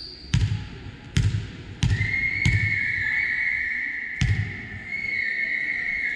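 A basketball bouncing on the court floor, five sharp bounces at uneven intervals. From about two seconds in, a steady high-pitched tone sounds over the bounces and keeps going.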